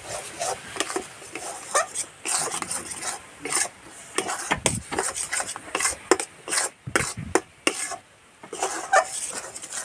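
Metal spatula scraping and stirring a thick chana dal paste around a metal kadai, in quick, irregular strokes with a short pause a little after eight seconds. The paste is being cooked down until it is stiff, for a paratha filling.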